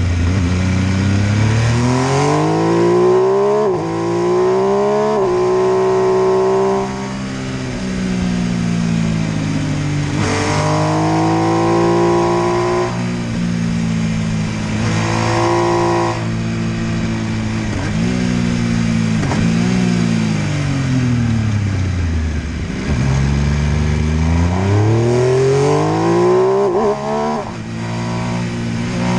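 MV Agusta F3 800's three-cylinder engine accelerating hard in several runs, its pitch climbing and stepping back at each quick upshift, then falling away as the bike slows, before climbing again.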